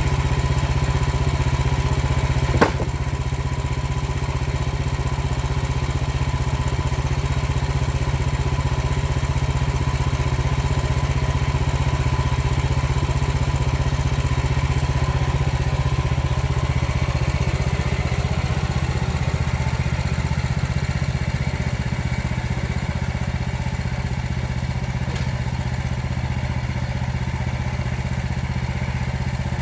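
Small gasoline engine of a Frontier portable bandsaw sawmill running steadily, with one sharp clack about two and a half seconds in.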